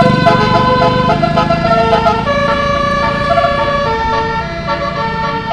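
Basuri 'telolet' multi-tone bus horn playing a melody: a string of held notes that step from one pitch to another, over a low rumble.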